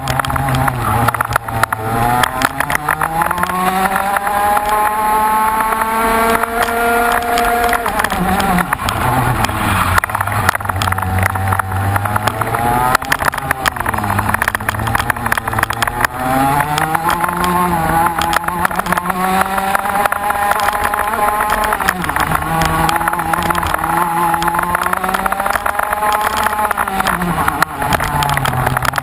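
Racing engine heard from the onboard camera at the handlebars, revving up in long climbs and dropping back several times, with the pitch falling sharply about 8, 14 and 28 seconds in, under a steady rush of wind on the microphone.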